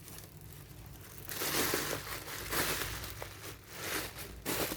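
Plastic packaging crinkling and rustling as it is handled, in several loud bursts beginning a little over a second in.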